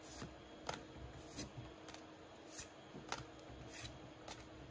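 Pokémon trading cards sliding against each other as they are flipped one at a time through a small stack: a soft, faint swish roughly every two-thirds of a second.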